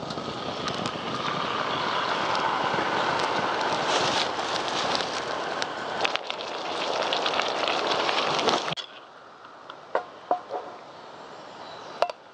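Sirloin steak sizzling and crackling in a hot cast-iron skillet, the sizzle cutting off suddenly about two-thirds of the way through. A few light clinks follow.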